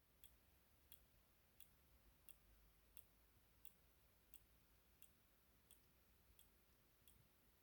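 Synology DS115 NAS making faint, evenly spaced clicks, about three every two seconds, over a low hum: a clicking defect in the unit.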